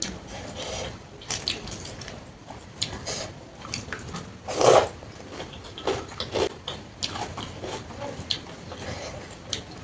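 Close-up eating sounds of a person taking big bites of a panta bhat meal: chewing with repeated short smacks and clicks, and one louder sound a little under five seconds in.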